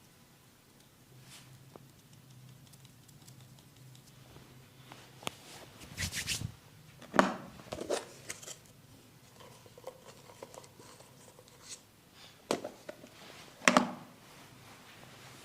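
Barber's hands working on a client's head: soft scratching and rubbing, with a few sharp pops, the loudest near the end.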